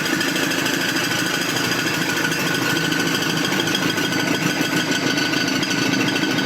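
Car engine running with a steady, rapid metallic clatter: the engine has been driven out of oil and is close to seizing.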